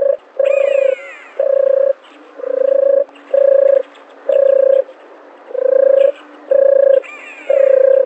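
A dove cooing: a run of about nine short, steady, hollow coos on one pitch, each about half a second long, at roughly one a second. A higher falling call sounds twice over them, near the start and near the end.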